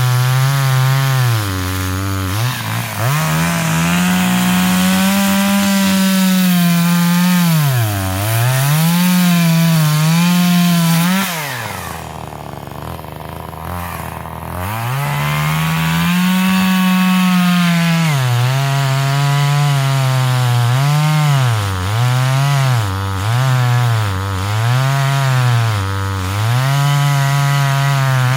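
Forest King two-stroke gas chainsaw cutting through a log at full throttle, its engine pitch sagging again and again as the chain bites into the wood and rising as it eases off. Near the middle it drops to idle for a few seconds, then revs back up into the cut. It is running on the factory chain as it came out of the box, which the owner thinks needs a good sharpening.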